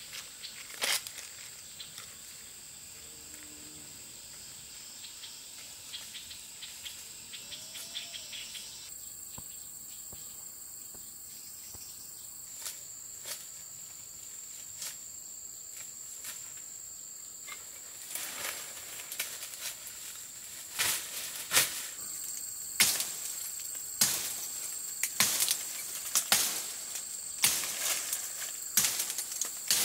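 Steady high-pitched insect drone throughout. From about two-thirds of the way in comes a series of sharp strikes, roughly one a second, as a knife blade chops into a tree branch.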